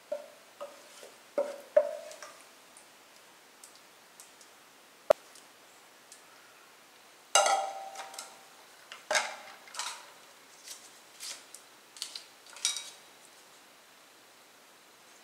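Wooden spoon scraping and knocking against an aluminium pot while thick, creamy fruit sweet is spooned out into a glass bowl. It is a run of irregular scrapes and knocks, some with a short metallic ring, with one sharp click about five seconds in.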